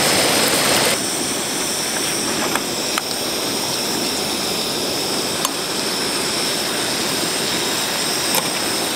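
Camp stove burner running steadily under a pot of pasta, with a few light clicks of a utensil on the pot. The noise drops a little about a second in.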